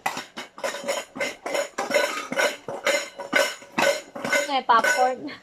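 Small stainless-steel toy pots and lids clinking and clattering as they are handled, many quick metallic clinks with a little ringing. A child's voice comes in briefly near the end.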